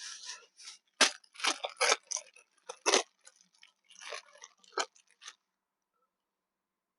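Close-miked eating: a run of sharp, crackly crunches and chewing sounds that stop about five seconds in.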